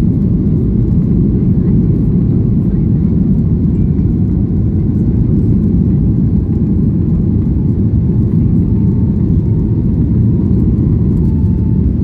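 Steady, loud cabin rumble of a Boeing 737 MAX 8 heard from over the wing as it rolls down the runway for take-off, its CFM LEAP-1B engines running under power.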